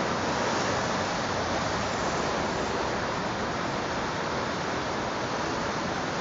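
Steady rushing noise, even and unbroken, with no distinct sounds standing out of it.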